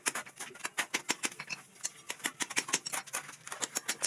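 A rapid, irregular run of short, sharp clicks and taps, several a second, like small hard objects knocking together.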